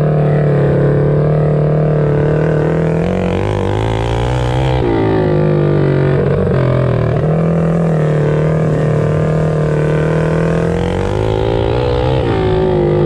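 Several small single-cylinder mini bike engines racing together, their pitch dropping and climbing again as the riders ease off and open the throttle through the turns.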